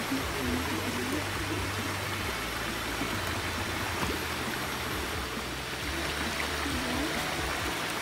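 Water from a small stream cascade rushing and splashing steadily over rocks.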